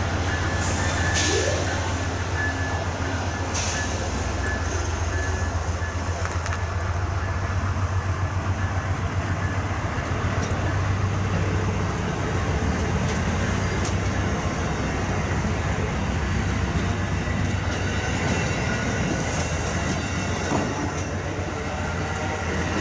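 Passenger train rolling past, its wheels clattering in a quick, even rhythm over a steady low engine hum.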